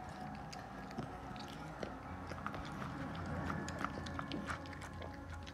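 Bulldog eating raw ground meat from a plastic bowl: steady chewing and mouthing with many small, irregular clicks.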